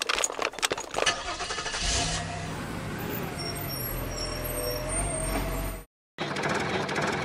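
A quick run of clicks and knocks, then a heavy machine engine running steadily with a low rumble, the engine sound given to a toy excavator. It cuts off suddenly near the end and is followed by a short burst of scraping rustle.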